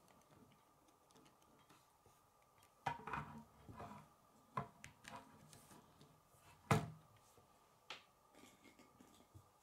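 Plastic K'nex pieces clicking and knocking as the model is handled and a rod is pushed into the chassis: a handful of short clicks starting about three seconds in, the sharpest knock near seven seconds, over a faint steady hum.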